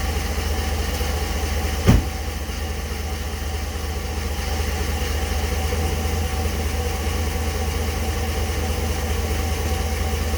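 Ram 1500 pickup engine idling steadily through an exhaust fitted with an electric dump cutout valve. A single short thump about two seconds in.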